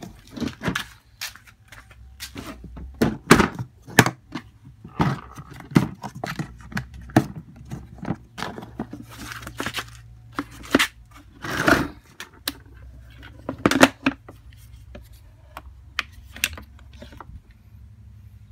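Irregular knocks, clicks and scraping rustles of handling around a car battery in a black plastic battery box, with the phone itself being moved about. The clatter stops about seventeen seconds in, leaving a low steady hum.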